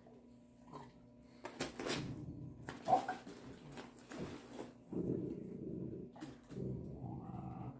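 Cats scuffling in and around a nylon pop-up play tunnel: irregular rustling and crinkling of the tunnel fabric with scattered scrapes, and one brief louder sound about three seconds in.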